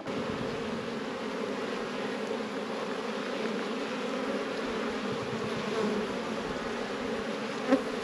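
A colony of honeybees from a caught swarm, housed in a swarm trap, buzzing: a steady drone of many bees.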